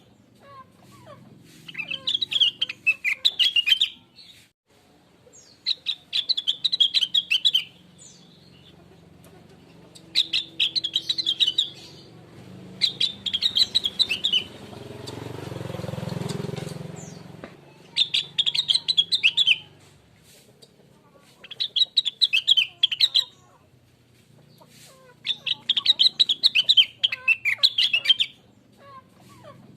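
Rengganis (cucak wilis) leafbird singing in repeated bursts of rapid, high chirps, each a second or two long, coming every few seconds. Around the middle a low rumble swells up and fades away over about three seconds.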